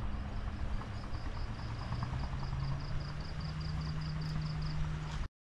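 An engine running steadily under a dense low rumble, its pitch climbing about two seconds in and then holding. A high chirping pulses about four times a second above it. All of it cuts off abruptly just before the end.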